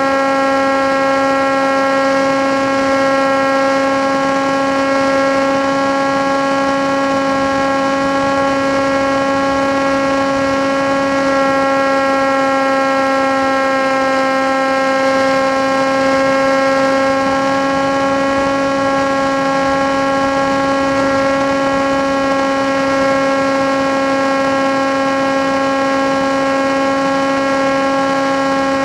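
Motor and propeller of an FPV model aircraft in flight at steady throttle: a loud, steady droning hum that holds nearly one pitch, sagging slightly around the middle.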